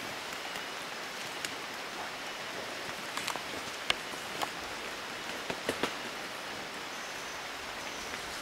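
Rainforest ambience: a steady hiss with scattered light ticks and snaps, the sharpest about four seconds in.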